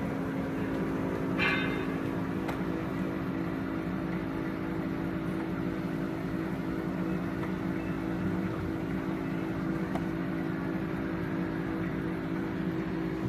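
Stainless-steel poultry cutting machine running steadily, its electric motor giving an even hum.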